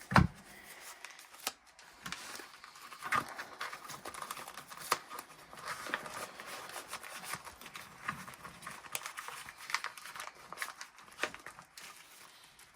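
Paper banknotes and envelopes being handled, rustling and crinkling with small irregular clicks, and a sharp knock right at the start.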